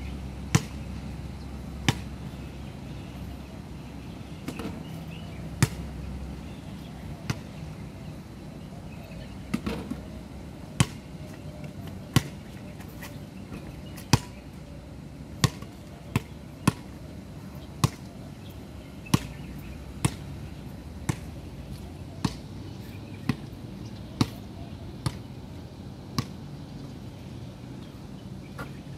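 A basketball bouncing on a hard outdoor court. There are a few scattered bounces at first, then from about halfway through it is dribbled steadily at roughly one bounce a second, over a steady background hum.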